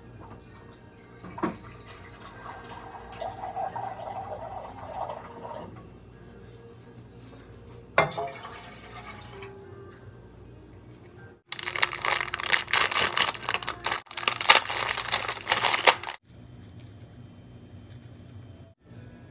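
Water poured into a bowl, a few seconds of gurgling filling with a couple of clinks of kitchen utensils, then about four seconds of much louder rushing, crackling noise.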